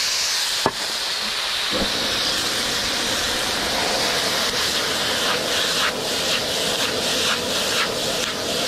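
Rice noodles sizzling and hissing in a wok over a high-output propane wok burner as they are tossed, a steady rush that fills out about two seconds in. A sharp clink of the metal ladle against the wok comes under a second in.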